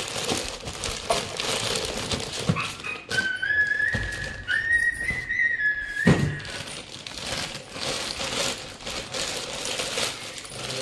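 Rustling and clicking of cardboard and plastic packaging as a mixer-grinder jar is unpacked, with a couple of thumps, the heaviest about six seconds in. A steady whistle-like tone, stepping up slightly in pitch, sounds for about three seconds in the middle.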